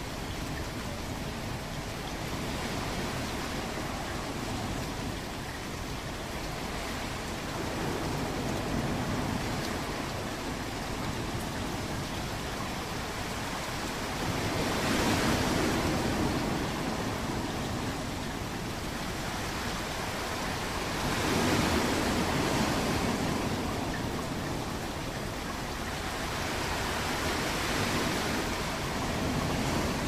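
Ocean waves washing in over a steady hiss of surf, swelling four times, about every six seconds.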